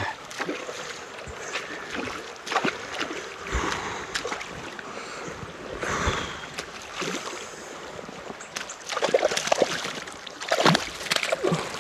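River water splashing and sloshing, with scattered sharp clicks and knocks, as a hooked brown trout is played on a fly rod. The splashing grows busier and louder near the end.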